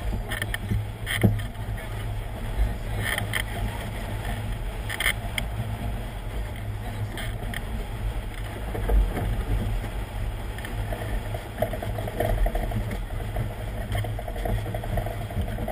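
Wind buffeting the microphone of a camera mounted on a Sigma 33 yacht sailing hard upwind, with water rushing along the hull. A few sharp knocks come through, about a second in and again around three, five and seven seconds in.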